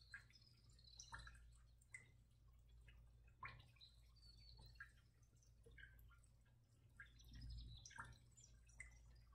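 Near silence: room tone with a steady low hum and faint, scattered ticks.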